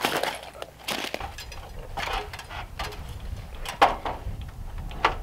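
Scattered sharp knocks and clinks of work on the wooden framing, about six separate strikes, over a low steady rumble that comes in about a second in.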